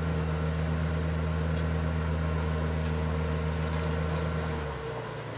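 An engine running steadily, giving a low, even hum that drops in level near the end.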